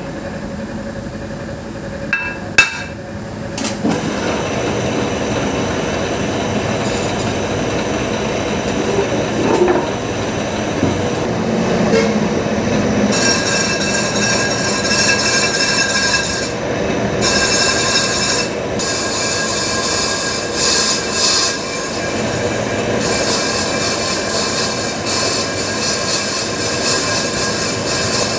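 Lathe turning a metal drum while the cutting tool takes a cut, the tool scraping against the metal. There are a couple of sharp knocks about two to three seconds in, and a steady high-pitched squeal from about halfway through, with brief breaks.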